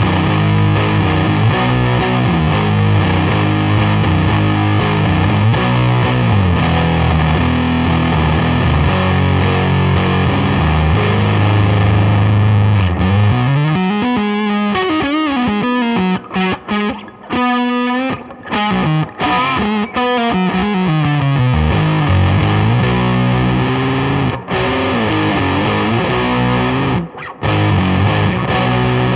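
Electric guitar on the neck pickup played through a one-knob Colorsound-style fuzz pedal with BC109 transistors, giving a dark, thick fuzz tone. Sustained low chords and riffs give way in the middle to bent, sliding notes with short breaks.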